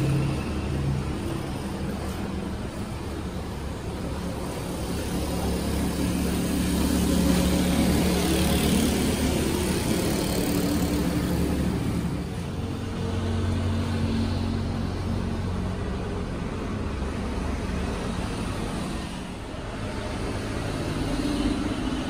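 An engine running steadily, its low hum shifting slightly in pitch now and then.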